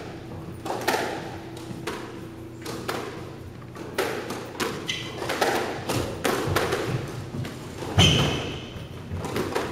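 Squash rally: the rubber squash ball struck by rackets and hitting the walls and floor, a string of sharp knocks and thuds about once or twice a second echoing in the court. Short high shoe squeaks on the wooden floor come around five and eight seconds in, the second with the loudest hit.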